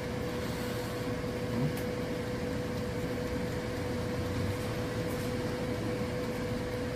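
Countertop air fryer running: a steady hum with the whir of its fan.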